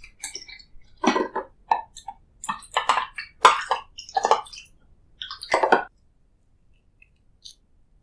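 Close-miked handling sounds of food and its packaging: a run of short crinkles, clicks and squishes over about six seconds, then it stops.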